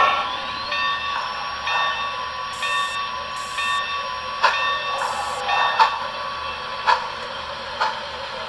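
Steam locomotive sound from an HO scale model locomotive: the tail of a whistle blast right at the start, then a slow, uneven run of exhaust chuffs over a steady steam hiss.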